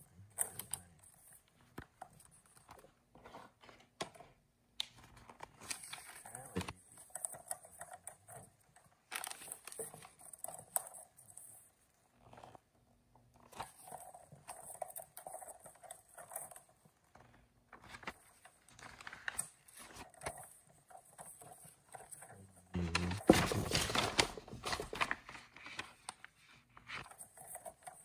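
Large paper instruction sheet rustling and crinkling as it is unfolded and handled, in short irregular bursts, loudest about 23 seconds in.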